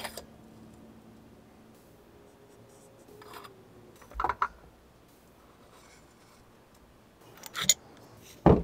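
Sparse clicks and knocks of metal bicycle headset and fork parts being handled and fitted: a short cluster of taps about four seconds in, a couple more near the end, and one louder knock just before it ends.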